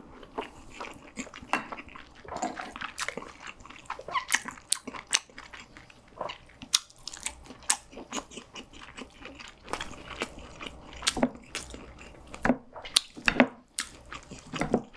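Close-miked eating sounds: irregular crunching bites and chewing, with sharp clicks scattered throughout.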